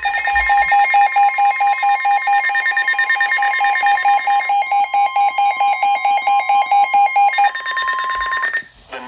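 Emergency alert tones signalling a severe thunderstorm warning: a steady high tone with a rapid pulsing beep over it, about four beeps a second. The beeping stops about seven and a half seconds in, and the steady tone a second later.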